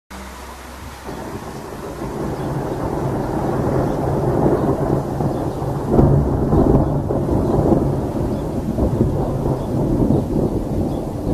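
Thunder from a nearby storm: a long rolling rumble that builds over several seconds and is loudest about halfway through.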